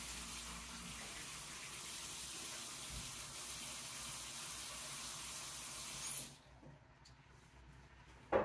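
Kitchen tap running steadily, shut off abruptly about six seconds in; a single sharp knock near the end.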